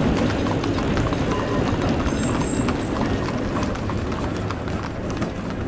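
Dubbed-in horse hooves clip-clopping on a street, many quick sharp clops over a steady low rumble of street and tram traffic.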